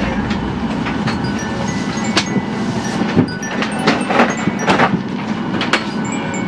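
Steady hum of an airliner cabin's ventilation with passengers moving about, and a string of sharp knocks and clacks from overhead bins and bags being taken down, most of them in the second half.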